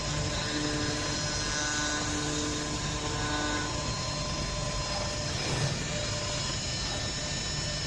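4-axis CNC wood router running: a steady machine noise with several whining tones, some of which come in about half a second in and drop out near the middle.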